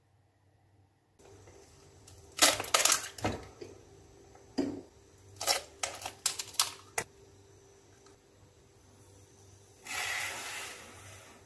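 Eggs tapped and cracked against a mixing bowl: several sharp knocks and shell cracks in two bursts between about two and seven seconds in. About ten seconds in, sugar pours from a glass into the bowl with a soft hiss lasting about a second.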